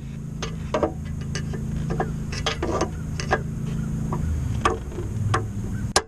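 Scattered light metal taps and clicks from a hammer and a long flat screwdriver braced against a seized upstream oxygen sensor, meant to shock its stuck threads loose. A steady low rumble runs underneath.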